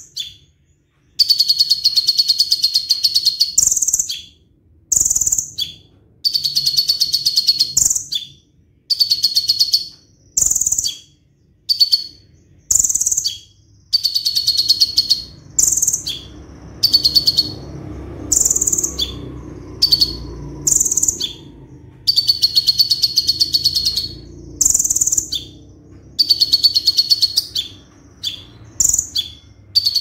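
Konin (a sunbird) singing in a cage: a run of loud, high, fast trills of rapidly repeated notes, one phrase every one to two seconds with short pauses between. This is the 'roll tembak' rolling-shot song prized in a singing konin.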